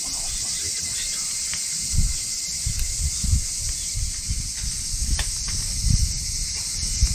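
Steady high drone of a cicada chorus over a small wood fire crackling in a folding fire grill, with a few sharp pops. Several low thumps, the loudest about two seconds in and near six seconds in, as split logs are handled and set on the fire.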